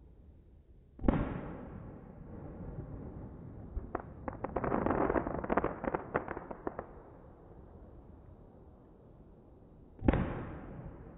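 Aerial fireworks shells bursting: a sharp boom about a second in that rolls away, a run of crackling pops from about four to seven seconds in, and a second boom near the end.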